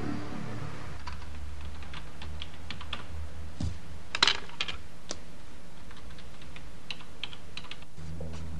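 Irregular light clicks and taps, with a louder clatter about four seconds in, over a low steady hum.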